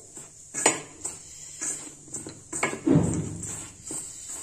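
Dry flour and semolina being mixed by hand in a stainless steel bowl: fingers scraping through the flour and knocking against the bowl's metal side in scattered short clicks, with a louder thump about three seconds in.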